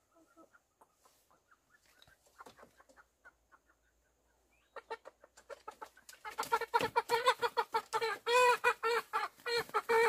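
A chicken clucking faintly, then from about six seconds in squawking loudly and rapidly as it is grabbed by the legs and pulled out of a bamboo coop: an alarm call at being caught.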